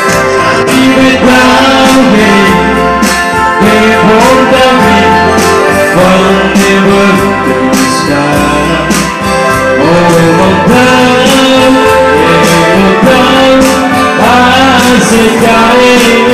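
Music: a song with a singing voice over guitar, bass and a steady beat.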